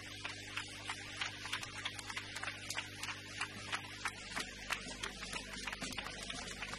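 Audience applauding, many irregular claps over a steady mains hum.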